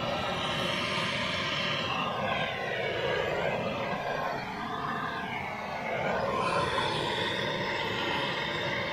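Handheld MAP gas torch burning with a steady hissing flame, held against a smoker's drain pipe to melt the grease clogging it. The tone sweeps up and down around the middle.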